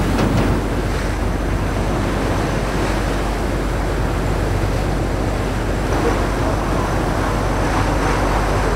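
Sea water rushing and splashing along the hull of a tuna line-fishing boat under way, steady throughout, with a constant low hum underneath.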